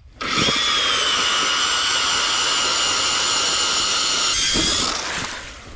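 Power ice auger drilling a new hole through the ice, running steadily with a high whine for about four seconds, then winding down near the end.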